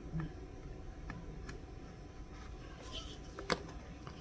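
Faint scattered clicks and light rustling of hands handling a folding knife's box and packaging, with a sharper tap about three and a half seconds in.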